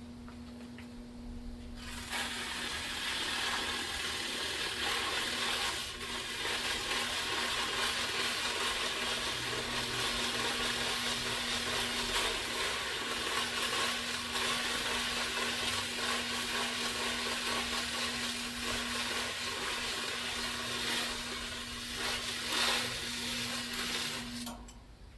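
Small electric fan motor running with a steady hum while sandpaper is held against its spinning shaft, making a continuous scraping hiss that starts about two seconds in. The shaft is being polished shiny. Both the hiss and the hum stop just before the end.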